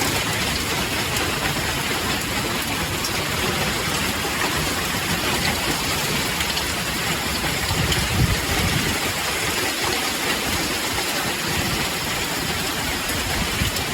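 Hailstones the size of large marbles pelting a vehicle: a dense, steady patter of countless small hits. A low rumble swells briefly about eight seconds in.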